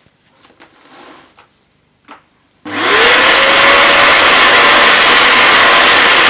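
Vax Dual Power Pro carpet washer's suction motor switched on about two and a half seconds in, its whine rising quickly and then running loud and steady with a high whistle, drawing air through the freshly attached hose. Before it, a few light clicks of the hose being handled.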